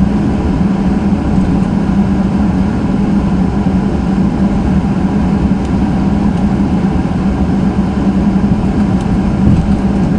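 Steady cabin noise of a Boeing 737-800's CFM56 turbofan engines and air conditioning, a continuous low hum with a constant tone, as the airliner taxis before takeoff.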